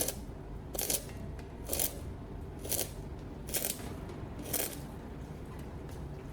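Short scraping strokes of a hand tool on steel, evenly spaced about one a second, six times, then stopping. This fits working over a fresh weld on square steel tubes.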